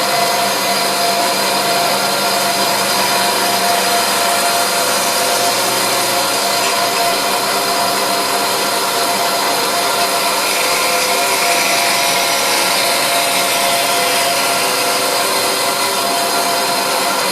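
Electric woodworking power tool running steadily at full speed, a continuous whirring noise with a steady hum.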